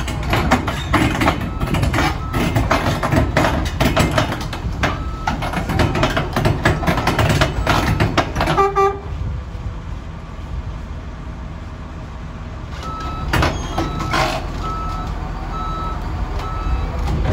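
Woltman 55DR crawler drilling rig crawling onto a low-loader trailer: its steel tracks clank and knock over the deck above the diesel engine's low rumble, while a reversing alarm beeps on and off. The clanking stops about nine seconds in, leaving the engine running, and two loud knocks follow a few seconds later.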